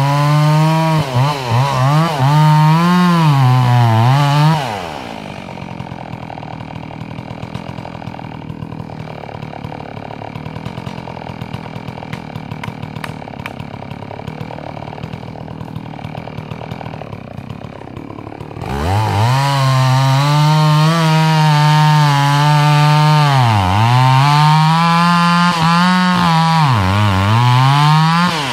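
Two-stroke chainsaw cutting into a messmate eucalyptus trunk at full throttle, its pitch wavering under load, then dropping to idle about four seconds in. About two-thirds of the way through it revs up and cuts again, the engine bogging down twice in the cut before dropping back at the end.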